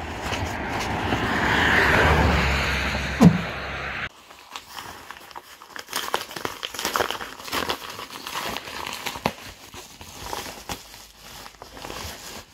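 Footsteps on a gravelly, snowy path with a swelling rush of noise and one sharp knock just after three seconds. About four seconds in, this cuts to the crinkling and rustling of a kraft-paper mailer envelope being handled and opened.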